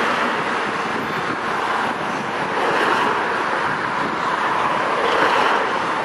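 Street traffic noise: a car driving past and a hybrid-electric city bus running at a stop, a steady noise that swells slightly twice.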